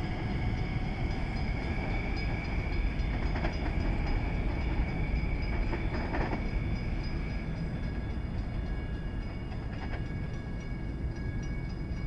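Kawasaki M9 electric multiple-unit train running away along the track: a steady low rumble with high, steady whining tones, a few sharp clicks, and the sound fading slightly toward the end.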